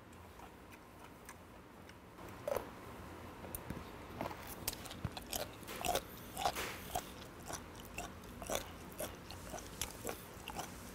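Close-miked chewing of steamed skate, its soft bones crunching and crumbling between the teeth in a run of irregular crunches that starts about two seconds in.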